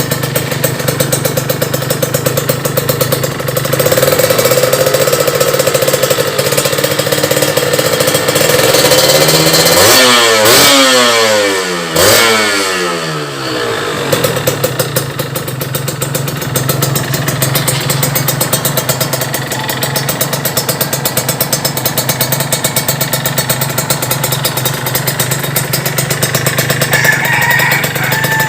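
Kawasaki KRR 150 two-stroke single-cylinder engine idling through an aftermarket RF Pipe exhaust, revved twice about ten and twelve seconds in, the revs falling away each time before it settles back to a steady idle.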